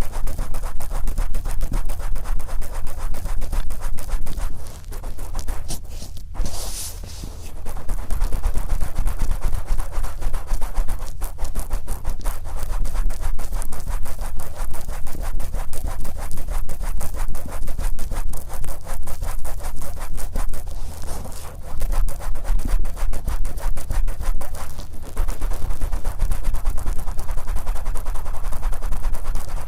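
Wet, oiled cotton swab rubbing over the outer ear of a binaural microphone, in quick, continuous scratchy strokes close up. There is a brief lull about five to seven seconds in.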